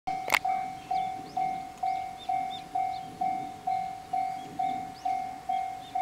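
Japanese level-crossing alarm ringing its electronic bell, a single clear tone struck a little over twice a second, each strike fading away: the warning that a train is approaching. A sharp click just after the start, and faint bird chirps between the strikes.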